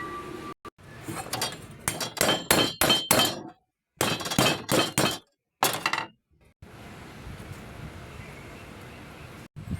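Metal being struck repeatedly in quick succession: sharp clinks and knocks with a slight ring, in three short bursts that cut off abruptly, followed by a steady background hiss.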